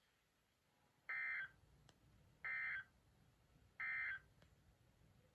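Emergency Alert System end-of-message data tones: three identical short, high-pitched digital data bursts, evenly spaced about a second and a half apart, the 'NNNN' code that marks the end of the alert.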